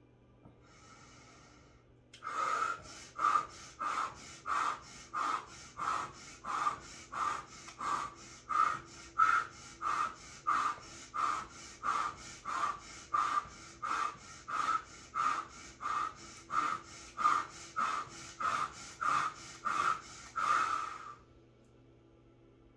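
A woman's rapid, forceful breathing in and out through the mouth, about thirty breaths at roughly three every two seconds: Wim Hof method power breathing. It starts about two seconds in and stops abruptly near the end.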